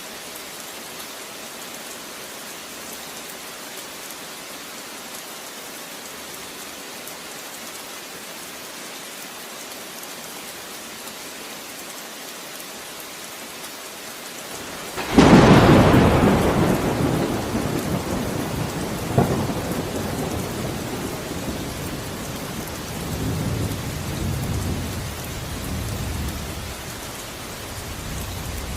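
Steady rain, then about halfway through a sudden loud thunderclap that rolls away over several seconds. A second sharp crack comes a few seconds later, and low rumbles go on under the rain after it.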